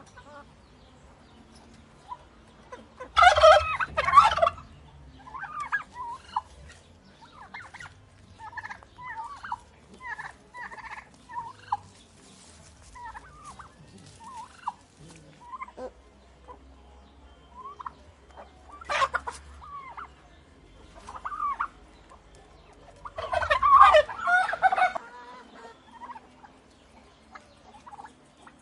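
Turkeys gobbling: loud rattling gobbles about three seconds in and again near the end, with many softer, shorter calls in between.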